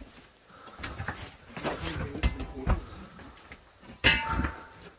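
Knocks, rustles and shuffling steps among debris and loose boards. About four seconds in there is a louder scraping clatter with a brief metallic ring.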